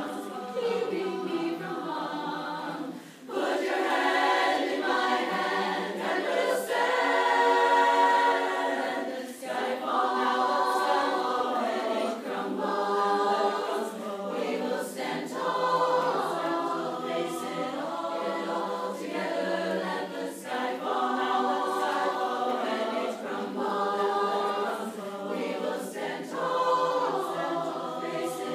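Unaccompanied chorus singing a barbershop-style arrangement in close harmony, holding chords and moving between them. There is a brief break about three seconds in.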